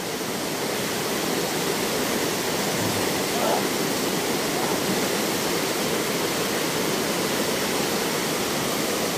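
Steady rush of flowing creek water, an even hiss with no break.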